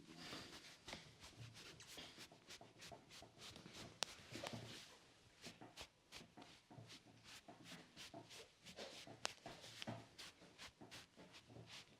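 Faint rubbing and soft irregular taps of hands massaging oiled hair and scalp, with two sharper clicks, one about four seconds in and one about nine seconds in.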